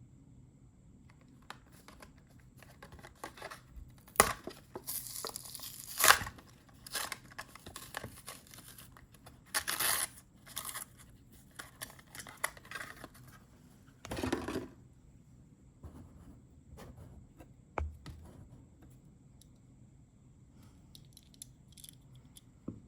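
Hot Wheels toy car packaging being torn and opened by hand: a run of ripping and crinkling noises over about twelve seconds, loudest in a few sharp rips, followed by a few light clicks and taps.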